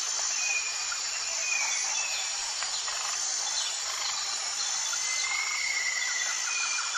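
Nature ambience: a steady high insect trilling, like crickets, with a few short bird chirps here and there, one longer chirp about five seconds in.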